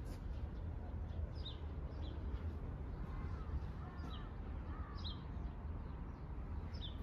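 Small birds chirping now and then: short, high, falling chirps about a second apart, with a few lower curving calls around the middle. Under them runs a steady low outdoor rumble.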